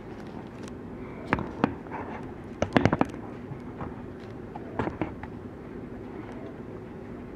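A few sharp clicks and knocks of objects being handled, the loudest a quick cluster about three seconds in, over a steady low hum.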